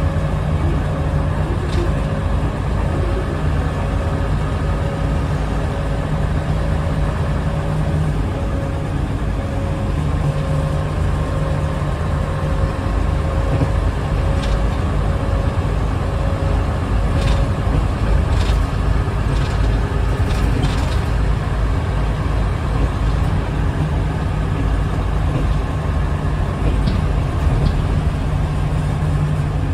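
Inside the cabin of a 1997 Nissan Diesel UA (KC-UA460HSN) route bus with a Fuji 7E body, cruising at about 50 km/h: a steady diesel engine and road rumble. A few faint clicks come through in the middle.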